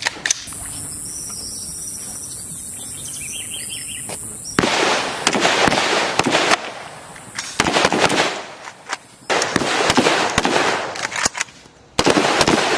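Bursts of gunfire from weapons training: four loud clusters of rapid shots, the first about four and a half seconds in. Before them a steady high whine with faint chirping.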